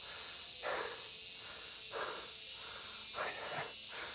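A winded man breathing hard after climbing steep stairs, three or four heavy breaths, over a steady high drone of insects.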